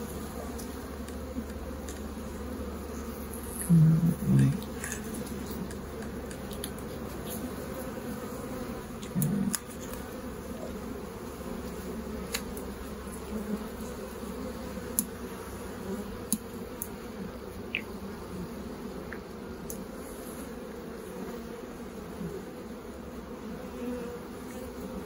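Honeybee colony humming steadily as a frame covered in bees is lifted from an open hive, with a couple of short, louder buzzes about four and nine seconds in and a few light clicks.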